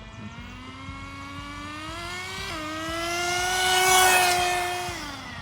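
Redcat Lightning STR RC car's small nitro engine screaming at high revs, its pitch climbing with a brief dip about two and a half seconds in, then dropping away just before the end. It is loudest about four seconds in as the car passes close. The engine is tuned rich.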